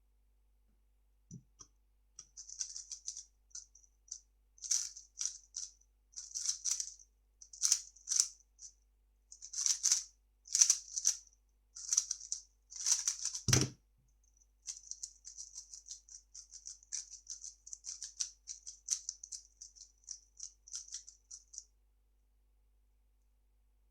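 A 3x3 speedcube being turned fast: quick clicking, rattling runs of turns in bursts with short pauses. A single heavy thump comes about halfway through, then a denser, more even stretch of turning that stops a couple of seconds before the end.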